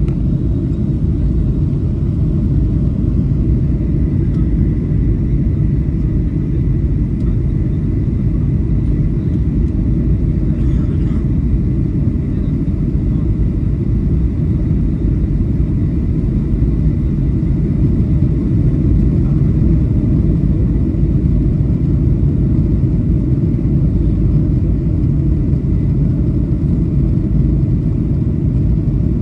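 Steady low rumble of a Boeing 737 airliner's cabin on final approach: jet engines and airflow over the extended flaps, heard inside the cabin.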